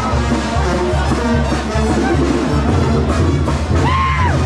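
Music with a steady drum beat, with an arched high note that rises and falls near the end.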